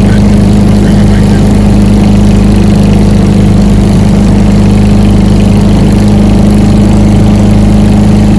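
Quad City Challenger II ultralight's air-cooled two-stroke engine and propeller running at a steady speed, a constant loud drone heard from the aircraft.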